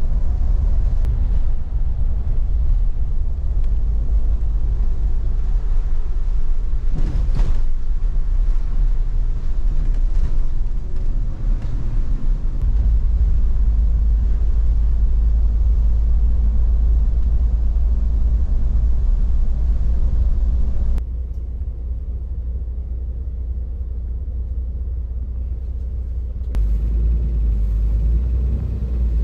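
Inside a highway coach on the move: steady low rumble of the engine and road with a hiss of tyres on the wet road. About twenty seconds in the hiss drops away abruptly, leaving mostly the low rumble, and the sound changes again shortly before the end.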